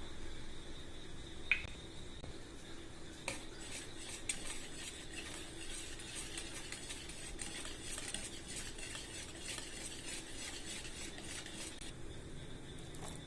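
Metal utensil beating eggs briskly in a bowl: rapid clicking strokes for about nine seconds. A single ringing clink about a second and a half in comes before them.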